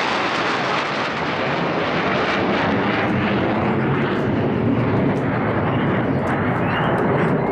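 Loud, steady jet noise from a Su-22M4 fighter-bomber's AL-21F-3 afterburning turbojet flying past overhead.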